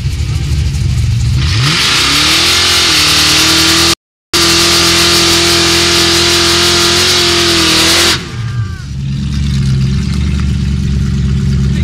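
A Ford Mustang drag car's engine revving up and held at high revs during a burnout, the spinning rear tyres hissing loudly. The revs climb about a second and a half in, hold steady, then drop away near eight seconds, and the engine settles back to a low idle.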